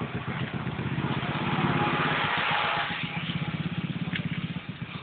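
A small engine running with a rapid, regular low firing beat. A rushing hiss swells and fades in the middle.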